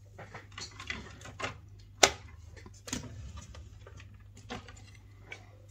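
Light clicks and rustling of small items being handled and moved about on a worktable, with two sharper knocks about two and three seconds in.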